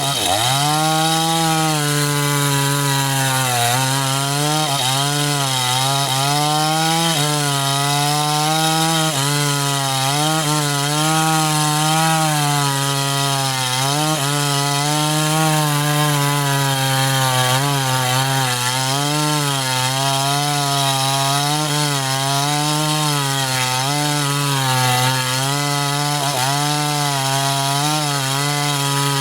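Two-stroke chainsaw cutting through a sengon log, running near full throttle throughout. Its engine note keeps dipping under load and picking back up every second or two as the chain bites into the wood.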